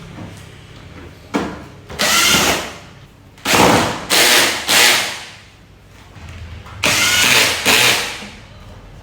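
Power drill running in several short bursts with pauses between them, its motor pitch bending within each burst.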